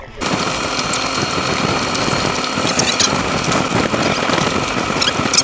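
Small boat's outboard motor running steadily, cutting in just after the start.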